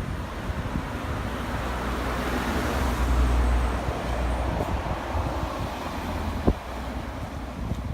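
Street traffic: a motor vehicle passing, its rumble building to a peak about three seconds in and then fading. A single sharp click comes near the end.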